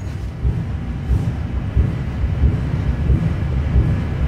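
Steady low rumble with no gunshots.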